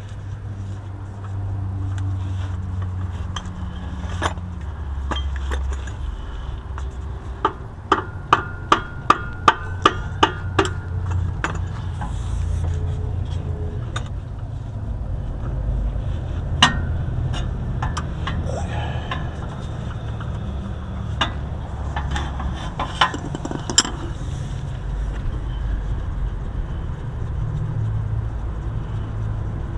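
Sharp metal-on-metal knocks from hand tools at the gearbox: a run of about eight quick strikes, a little over two a second, with a ringing note, then a few single knocks. Under them is a steady low rumble.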